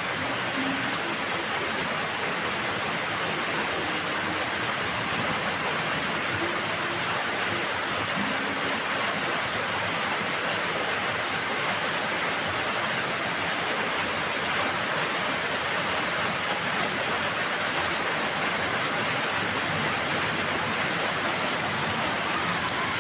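Steady rain falling: a dense, even hiss with no breaks.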